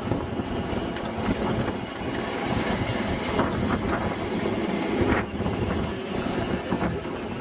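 7.5-inch gauge ride-on miniature train running along its track: a steady rumble of wheels on rail, with wind on the microphone and a few sharp clacks.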